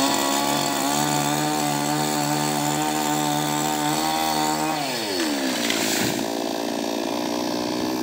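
Two-stroke chainsaw running at high revs, then dropping back to idle about five seconds in.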